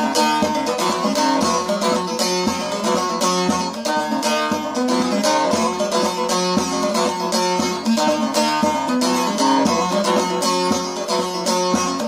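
Bağlama (long-necked Turkish saz) strummed rapidly, playing an instrumental interlude of a devotional Alevi hymn, with quick strokes over a steady drone note.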